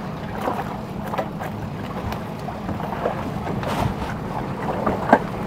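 Small fishing boat's engine running steadily, with scattered knocks and clatter as the catch is handled and one sharp knock about five seconds in.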